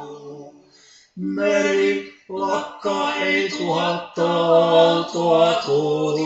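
Male vocal quartet singing a slow Finnish lullaby in close harmony, with held chords. A chord fades out into a brief pause, and the singing picks up again about a second in.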